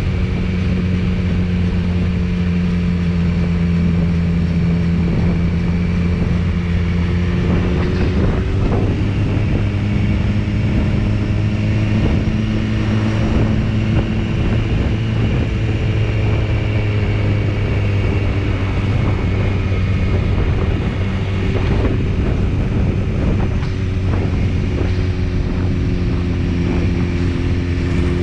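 BMW S1000RR's inline-four engine running steadily under way, its pitch shifting a few times as the revs change, with wind noise on the microphone.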